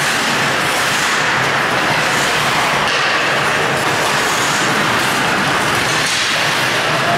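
Ice hockey game noise on a rink: a steady loud hiss with a few faint clicks of skates, sticks and puck.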